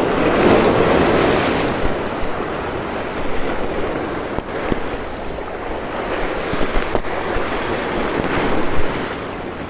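Sea surf washing against shoreline rocks, swelling loudest in the first second or two and then running on as a steady wash, with wind on the microphone.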